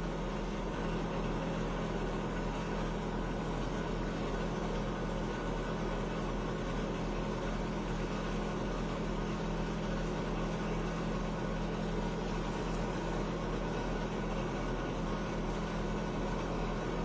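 Steady low machine hum with an even hiss, unchanging in level throughout, such as a running fan or appliance motor.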